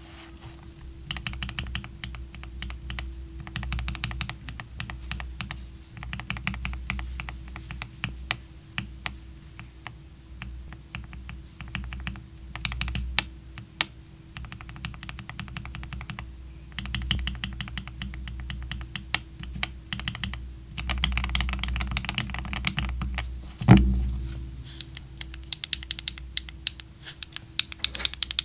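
Fast typing on a Tofu60 2.0 mechanical keyboard with factory-lubed WS Light Tactile switches, a carbon plate and a silicone bowl mount: dense runs of key clacks with short pauses between them. Late on, a single heavier thud stands out.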